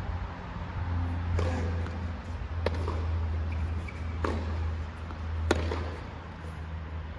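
Tennis ball struck back and forth by rackets in a rally: four sharp hits about a second and a half apart, over a steady low hum.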